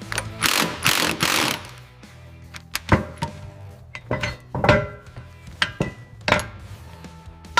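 Background music with workshop tool sounds over it: a string of sharp clicks and knocks, and a few short swishing hisses, the longest near the start.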